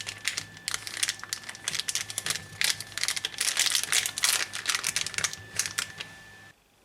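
Rapid, irregular clicking and crinkling of plastic toys or packaging being handled, over a steady electrical hum with a faint high whine. The sound cuts off abruptly near the end.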